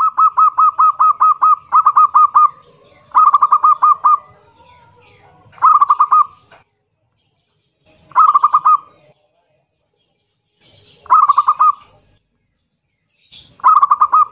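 Zebra dove (perkutut) calling loudly: a long run of rapid, rolling coo notes, then five shorter bursts about two and a half seconds apart. This is the deep, grating 'kerot nguwor' voice that perkutut keepers prize.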